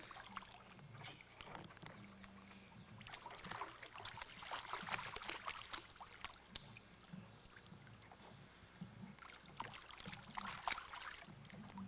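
Water splashing and sloshing in a plastic kiddie pool as a toddler slaps at it with her hands, in irregular bursts, busiest about three to five seconds in and again near ten seconds.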